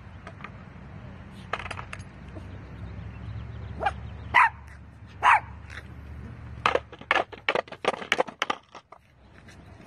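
A small dog barking, with a steady low rumble of skateboard wheels rolling on concrete underneath. Two loud barks come about four and five seconds in, followed by a quick run of short sharp sounds near the end.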